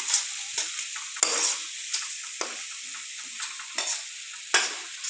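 Spice masala with a little water sizzling in a kadai while a metal spoon stirs it, scraping and knocking against the pan in several separate strokes over a steady hiss.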